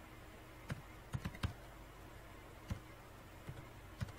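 Computer keyboard being typed on: irregular single key clicks, with a quick run of several keystrokes a bit over a second in and more near the end, over a faint steady low hum.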